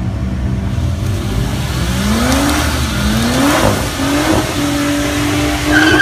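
FPV F6's turbocharged 4.0-litre inline-six revved hard for a drag-strip burnout, its rear tyres spinning in the water box. The revs climb and drop a few times, then are held high. A tyre squeal starts near the end.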